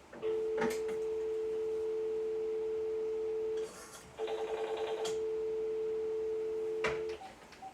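Telephone dial tone, two steady tones together, on a breezeLine VoIP line. About three and a half seconds in it breaks off briefly, then a quick run of pulse-dialing clicks chops it for about a second. The dial tone then carries on steadily: the pulses did not fully interrupt the circuit because another phone on the line was still off the hook.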